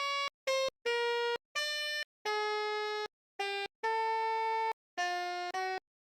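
Basuri telolet multi-tone bus horn playing an ice-cream jingle melody: a string of about nine separate notes of changing pitch, each cut off cleanly with a short silent gap before the next.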